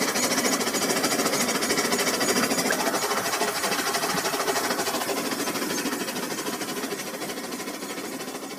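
Rail King toy train's small electric motor and gearing running with a fast, even clatter, growing steadily fainter as the train moves away.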